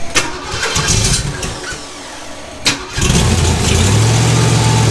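Chevy 350 small-block V8 with a solid-lifter Comp cam being started: a click about two and a half seconds in, then the engine catches and runs loudly and steadily through open headers. An early start of a fresh build whose running the builders blame on a really, really bad carburetor.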